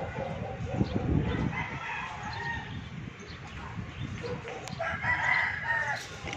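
A rooster crowing twice, a fainter crow about two seconds in and a louder one near the end, over a low rumble.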